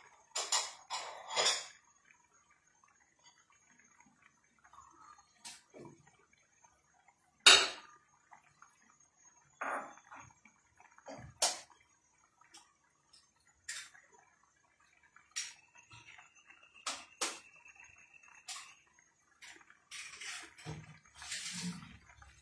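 Pasta boiling in water in a nonstick frying pan: irregular sharp pops and sputters with quiet gaps between, one much louder than the rest about seven seconds in.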